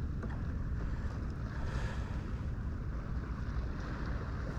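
Wind buffeting the microphone in a steady low rumble, over the soft wash of small waves around a drifting kayak.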